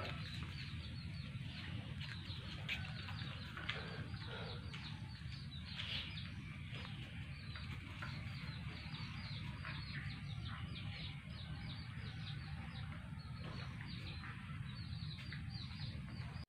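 Birds chirping many times over, in quick short downward chirps that come thickest in the middle, over a steady low rumble.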